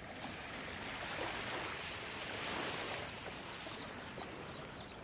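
Small waves washing on a sandy beach: a steady hiss that swells a little in the middle and eases off.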